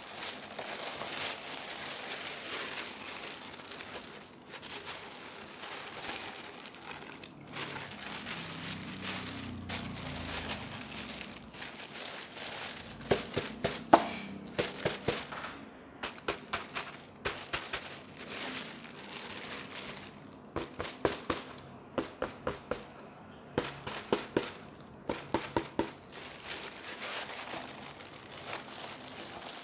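Clear plastic bag crinkling and rustling as hands handle a plastic face shield inside it. About halfway through, sharp crackles begin to come in quick runs.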